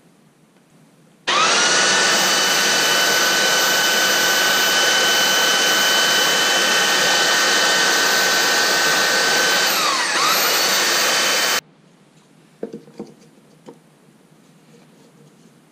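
Handheld electric sander starting with a rising whine and running steadily as a small piece of wood is pressed against it; the whine dips briefly under load before the sander cuts off. A few light knocks follow as it is set down.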